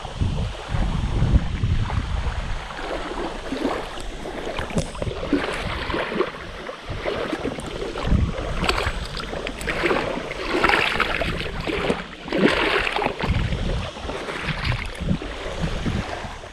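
Wind buffeting the microphone and small waves lapping on the shore, with water splashing about halfway through as a common carp is lowered into the shallows and released.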